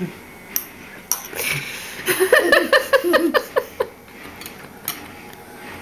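A quick string of short laughs, about four or five a second, about two seconds in, with a few sharp clicks of a spoon against a bowl before and after.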